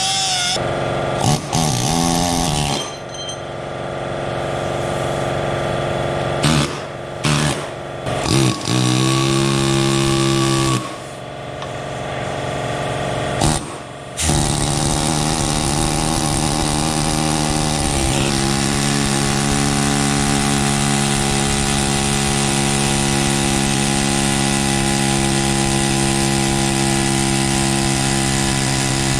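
Angle grinder cutting steel in the stump grinder's pillar bearing housing, starting and stopping in several short runs. From about halfway through, a steady mechanical hum holding a few fixed pitches takes over.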